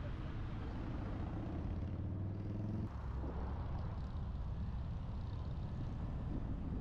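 Car engine and tyre noise while accelerating. The engine note rises for about three seconds, then drops suddenly, and steady road noise carries on.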